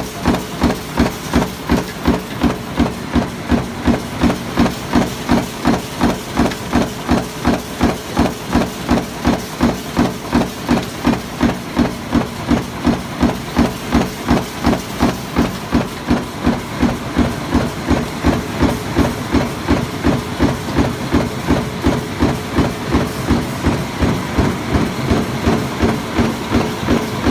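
Sheet-metal stamping press running continuously while punching motor-core laminations: a regular knock at about two strokes a second over a steady machine hum.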